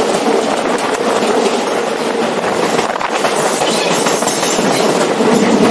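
New York City Subway A train running at speed on open track: a steady wheel-on-rail noise with occasional clacks as the wheels pass rail joints.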